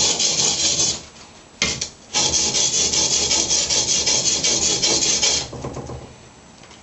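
Sharpening stone rubbed in rapid strokes along a sword's steel edge, making a hissing scrape: a spell of about a second, a short one, then about three seconds of continuous stroking that stops near the end.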